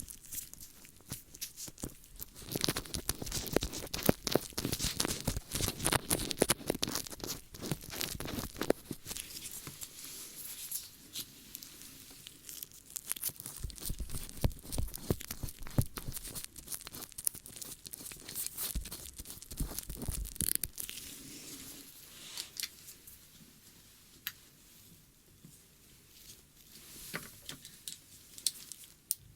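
Close-up ASMR ear-cleaning sounds: dense crackling and scratching right at the microphone, busiest in the first third and then softer and sparser.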